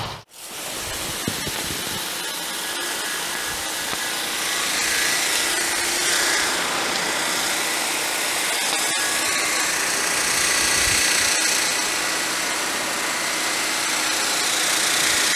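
High-pressure water jets from a Mosmatic Hurricane Pro undercarriage cleaner spraying steadily upward against a plywood board held above it. The cleaner is fed at 3,500 PSI and 4 gallons a minute through two number 3 nozzles.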